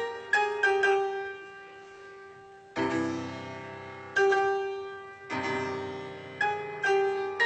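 Grand piano playing a slow, sparse phrase of single struck notes, each left to ring and fade, with a fuller chord about three seconds in and another a little past five seconds.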